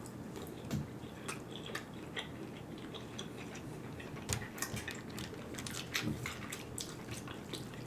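Close-up chewing and mouth sounds while eating: a faint, irregular scatter of soft clicks and smacks.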